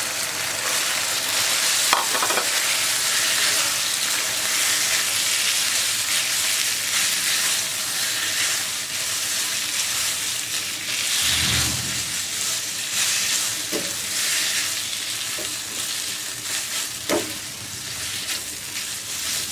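Boiled spaghetti sizzling as it is stir-fried with chicken and sauces in a hot pan, the spatula stirring and scraping through it, with a few light clinks and a low thump about halfway.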